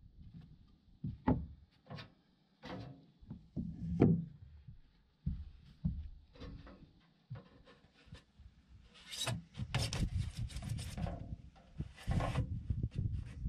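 A copper thru-wall scupper being worked into its wall opening: scattered, uneven knocks and thumps, then stretches of scraping and rubbing about two-thirds in and again near the end.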